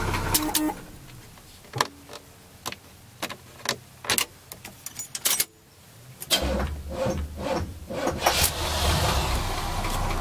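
Low engine idle hum in a car cabin that cuts off under a second in, followed by a string of sharp clicks and knocks from the key and dash controls; about six seconds in the low engine hum is back.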